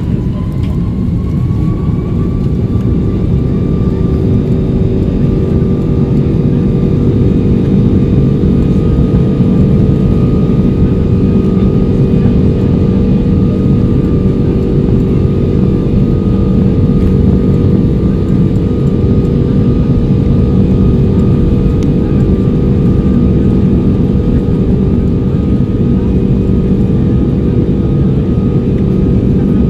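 Airbus A340-600's Rolls-Royce Trent 500 turbofans at takeoff thrust, heard from inside the cabin over the wing: a loud, deep, steady roar with a fan whine that rises in pitch over the first couple of seconds and then holds.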